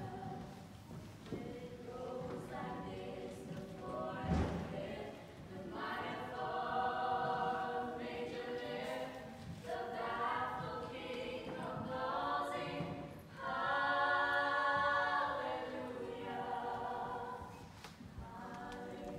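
Four young female voices singing unaccompanied in harmony, holding long sustained chords that swell and fade, fullest about two thirds of the way through. A brief knock sounds about four seconds in.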